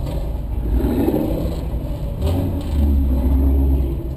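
Ford Mustang engines and exhausts rumbling as a line of Mustangs pulls out at low speed one after another. A deeper, louder engine note comes in about two and a half seconds in as the next car passes close by.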